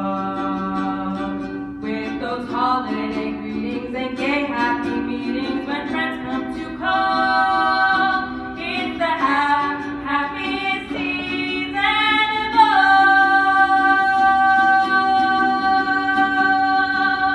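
Voices singing a Christmas medley in harmony, moving through several phrases and then holding one long chord for the last few seconds.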